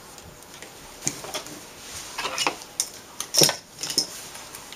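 Scattered light taps and clicks of gloved hands pressing double-sided tape down along the sheet-metal frame of an LCD panel, the loudest a little past halfway.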